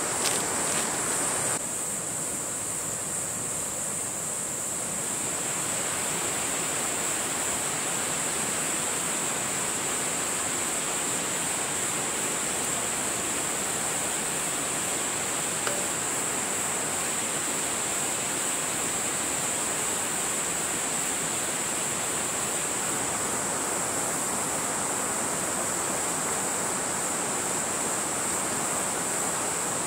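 A steady, even rushing noise, like running water, under a constant high-pitched insect trill.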